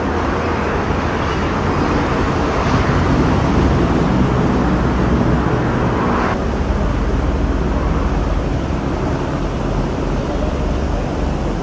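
Steady low rumble and hiss of outdoor background noise, with no clear single source; the hiss drops a little about six seconds in.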